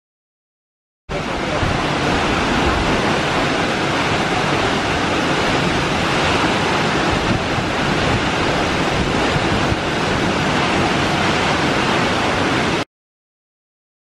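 Reichenbach Falls, a tall waterfall dropping into a plunge pool, rushing with a loud, steady roar of falling water. The sound starts abruptly about a second in and cuts off suddenly near the end.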